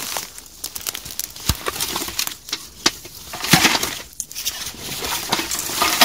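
Irregular rustling and crackling of dry undergrowth, with sharp snaps and clicks scattered throughout.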